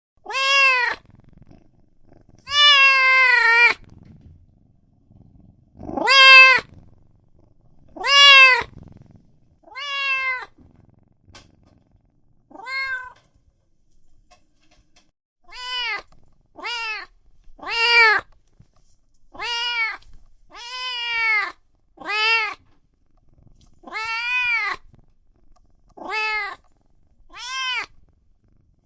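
A run of domestic cat meows, about sixteen separate calls, each rising and then falling in pitch. One near the start is long and drawn out, and they come closer together in the second half.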